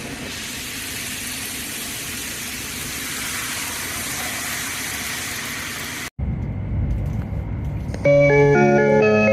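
Joetsu Shinkansen running noise, a steady rushing hiss, which cuts off abruptly a little after six seconds to a lower rumble. About a second before the end, the train's onboard furusato chime starts, a short melody of bell-like mallet notes announcing the approach to a station.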